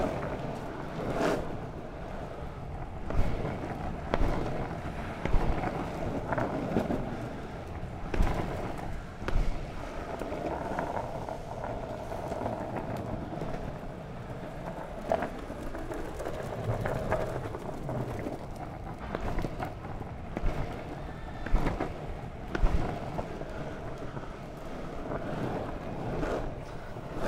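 Longboard wheels rolling over tarmac: a steady rumble, broken by sharp knocks several times.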